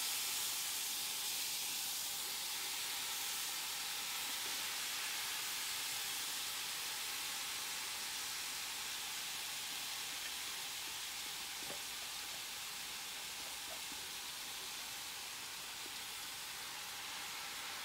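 Frozen peppers, onions and kale sizzling in a very hot cast-iron skillet: a steady hiss as their water hits the hot pan and turns to steam. The hiss eases off slightly over the seconds, with a few faint ticks of utensils.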